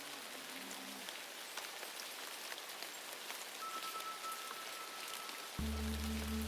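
Steady patter of rain with faint ticks of drops, under a few soft held musical notes. About five and a half seconds in, a loud, low, steady drone sets in abruptly.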